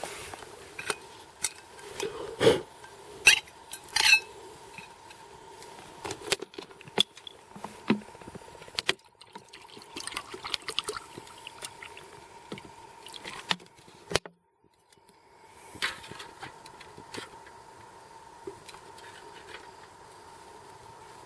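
Scattered light clinks and knocks of metal camp cookware, pots, mug and utensils being handled, over a faint steady hum. The knocks are most frequent and loudest in the first few seconds.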